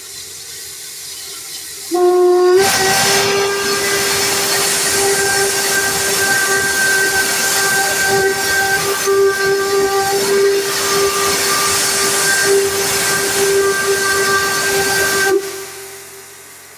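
Steam whistle blown in one long blast of about thirteen seconds over a loud hiss of escaping steam. It opens about two seconds in with a brief upward step in pitch, holds a steady note, and cuts off sharply near the end, leaving a fading hiss.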